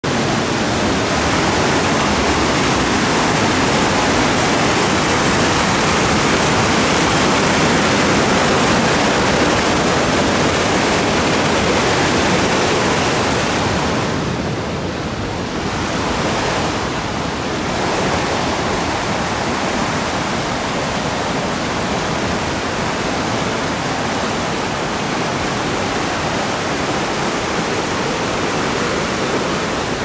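Loud, steady rush of white water pouring over rock in the Katashina River gorge at Fukiware Falls. It thins slightly twice about halfway through.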